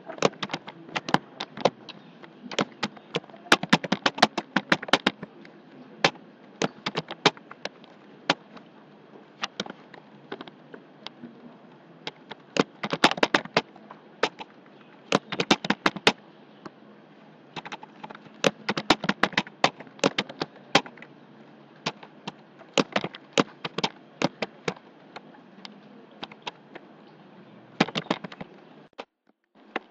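Computer keyboard typing in quick bursts of key clicks with short pauses between, over a faint steady hiss.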